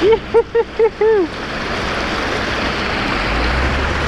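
Steady rush of stream water, with a quick run of five short whooping vocal calls in the first second or so.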